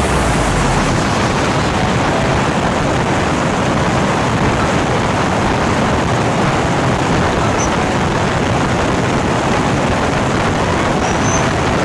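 Steady rush of wind over the microphone of a motorcycle riding at speed, with engine and tyre noise blended in and no distinct engine note.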